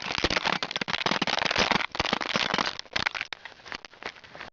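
Ice crackling and crunching in a dense run of sharp snaps, heaviest in the first two seconds and thinning out near the end.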